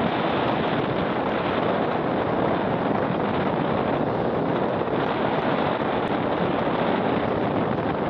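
Wind buffeting the microphone over rough surf breaking on the beach: a steady, even rush of noise with no let-up.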